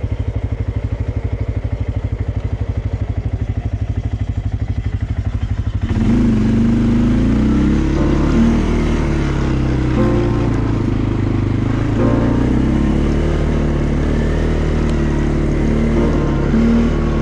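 CFMoto ATV engine idling with an even pulsing beat, then pulling away about six seconds in and running up and down in pitch as the quad is ridden.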